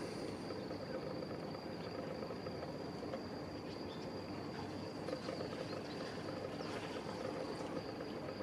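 Faint, still evening ambience with a steady high-pitched insect trill over a low, even background hum.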